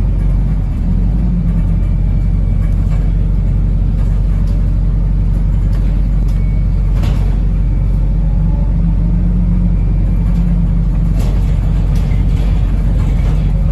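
Steady low rumble of a Wrightbus New Routemaster (NB4L) diesel-electric hybrid bus running, heard from inside the cabin, with a few faint rattles.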